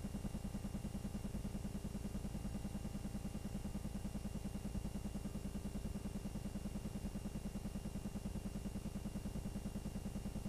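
Steady, rapid low mechanical clatter of a home-movie film projector running, an even stream of pulses with a faint hum.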